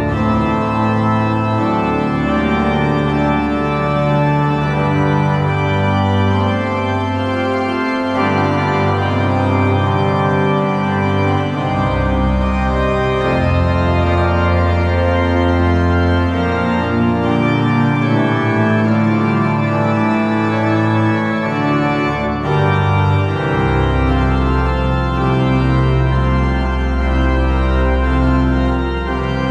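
Rémy Mahler pipe organ playing on full organ with pedal (pleno organo): slow, sustained polyphonic chords. Deep pedal bass notes come in about twelve seconds in, drop out briefly, and return a couple of seconds before the end.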